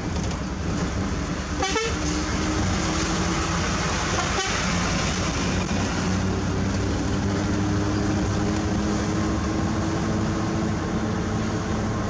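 Mitsubishi Fuso self-loader truck's diesel engine running steadily at cruising speed, heard from inside the cab together with road and tyre noise.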